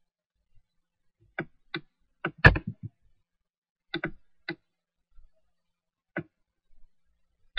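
Scattered clicks of a computer mouse and keyboard, about a dozen, some in quick pairs, with one louder knock about two and a half seconds in.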